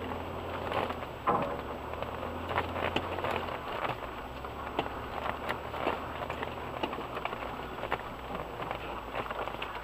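Off-road vehicle driving slowly through deep mud ruts, heard from inside the cabin: a low steady engine hum under a constant patter of small knocks and crackles from mud and the bouncing suspension. The engine's hum shifts lower about three and a half seconds in.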